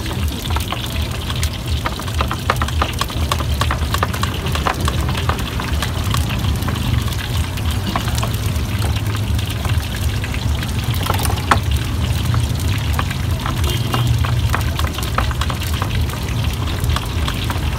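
Tofu frying in hot oil in a wok, a steady crackling sizzle over a low hum, with a stone pestle grinding and scraping spice paste on a plate.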